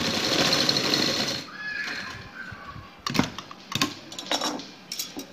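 Sewing machine running, stitching for about a second and a half and then stopping. A few sharp knocks follow as the work is handled at the machine.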